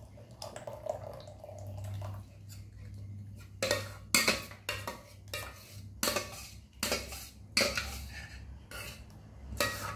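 Coconut milk poured in a stream into a glass bowl, then from about three and a half seconds in a run of sharp metal clinks, about two a second, of utensils against a steel tumbler and kitchenware.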